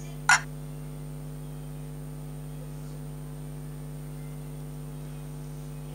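Steady low electrical mains hum. A single short, sharp, loud sound comes about a third of a second in.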